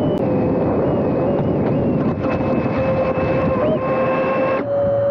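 Mini RC hovercraft's two small brushless motors (Mamba 1105 5500kv, from a 2-inch quadcopter) whining at steady throttle over rushing air and ground rumble. The pitch jumps up briefly near the end before the sound cuts off abruptly.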